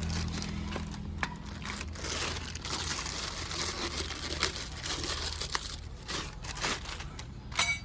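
Plastic packaging crinkling and rustling as a replacement scooter air filter is handled, with scattered small clicks and a sharper click near the end, over a steady low hum.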